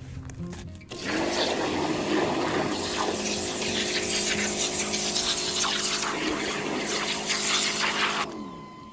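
Pressure washer jet blasting into clay soil to dig a trench, the pump running with a steady hum under the hiss of water. It starts about a second in and cuts off shortly before the end.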